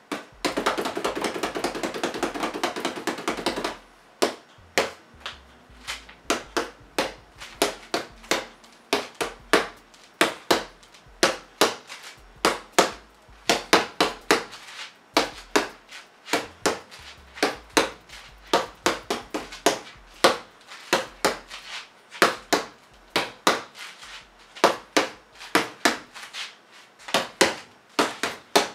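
Fists punching a homemade wall-mounted punching pad of packing foam under upholstery cover, held on by a magnet: sharp slapping hits. It opens with a fast, dense flurry of about three and a half seconds, then goes on as single punches and pairs, about one to two a second.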